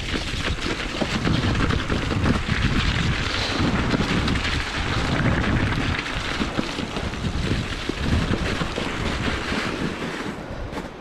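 Mountain bike rolling down a loose rocky trail: tyres crunching over stones and the bike rattling with every knock, with wind buffeting the microphone. It goes quieter about ten seconds in as the tyres reach snow.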